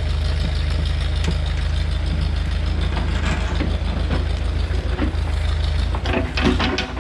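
Backhoe's diesel engine running steadily, with a quick cluster of knocks and rattles near the end.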